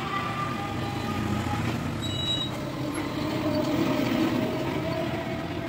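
Street traffic: motor vehicles running and passing on the road, a steady rumble with slowly shifting engine tones. A short high ring comes about two seconds in.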